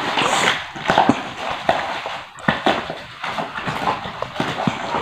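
Plastic wrapping and cardboard rustling and crinkling, with scattered light knocks, as a rifle is handled and unwrapped in its shipping box.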